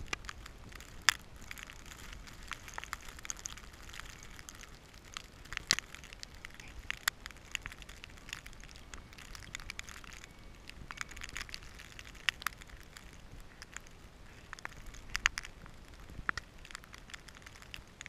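Blizzard snow pelting the camera, irregular sharp ticks and crackles over a faint low wind rumble.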